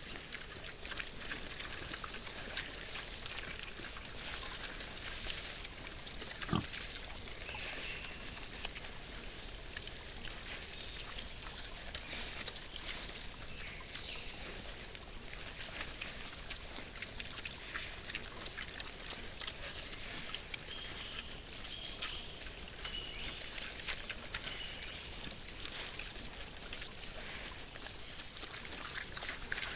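Wild boars feeding, grunting, with constant crackling and crunching of chewing and rooting. A single sharp knock about six and a half seconds in.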